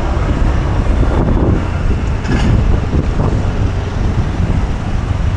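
Steady low rumble of road traffic and engines, heard while riding through busy city traffic.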